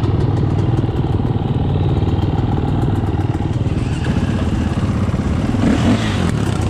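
Dirt bike engine idling steadily close up. About six seconds in, an engine revs briefly, rising and falling.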